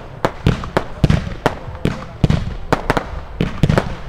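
Splitting Neon 100 firework cake firing, a rapid, uneven string of sharp bangs at about three to four a second.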